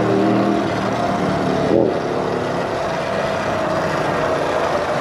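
Wind and road noise from riding an electric motorbike, with a steady pitched hum that fades out about two seconds in.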